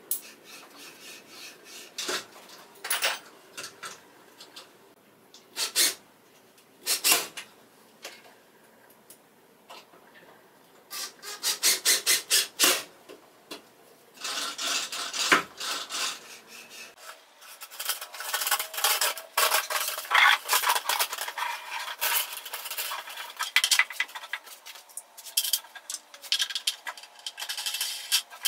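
Handling noises: scattered clicks and knocks of plywood parts and a wrench being worked, then a quick run of rasping strokes. After that comes a long stretch of crinkling as aluminum foil flexible dryer vent duct is handled.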